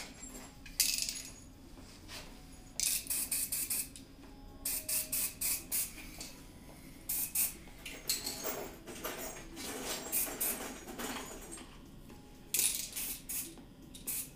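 Aerosol spray-paint can hissing in short bursts, several in quick succession, with pauses between the groups.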